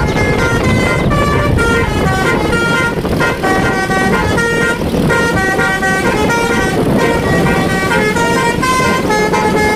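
Telolet bus horn playing a quick tune of short toots, several tones sounding together, over steady vehicle noise.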